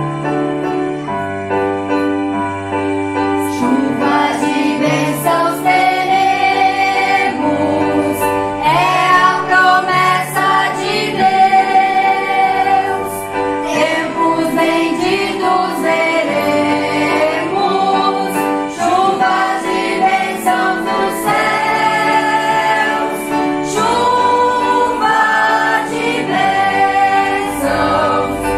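A small group of voices, mostly girls', singing a hymn together to an electronic keyboard. The keyboard plays alone for the first few seconds, then the voices come in.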